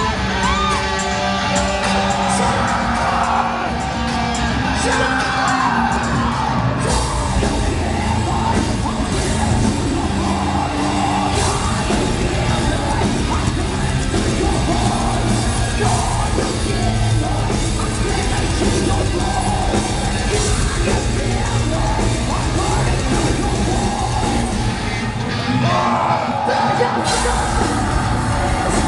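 Loud live heavy metal played by a full band in a large hall, with a voice yelling and singing over it. About seven seconds in, the cymbals come back in fully. Near the end the bass drops out for a moment, then the whole band crashes back in.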